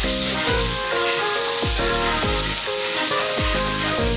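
Background music with a steady beat, over the steady sizzle of a hamburger steak on a hot iron serving plate.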